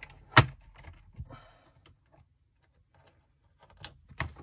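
Wire leads being handled and pushed onto the terminals of a plastic electronics kit board: one sharp click about half a second in, then softer clicks and a brief rustle of wire, a quiet spell, and a few more clicks near the end.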